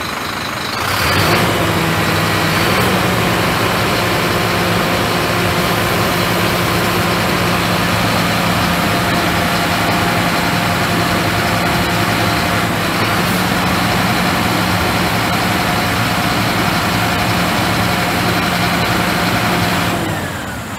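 Scania truck's diesel engine running steadily at raised revs, driving the hydraulics as the tipped body is lowered back onto the chassis. The revs come up about a second in and drop back to idle near the end.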